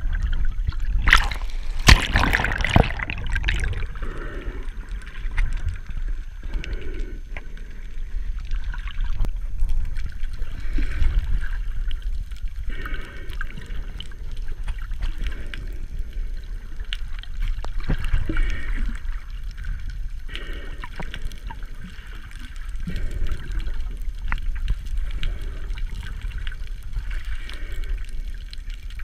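Water heard underwater: an uneven, muffled gurgling and sloshing that swells and fades every few seconds, with a few sharp knocks about two seconds in.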